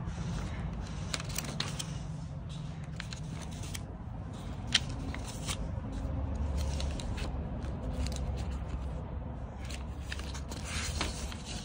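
Paper rustling and crackling as a stack of service records and registration papers is leafed through, with one sharp click about five seconds in, over a low steady hum.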